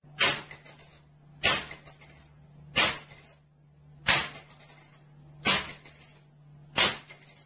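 Handgun fired repeatedly in a small room: six sharp shots evenly spaced about 1.3 seconds apart, each with a short echo.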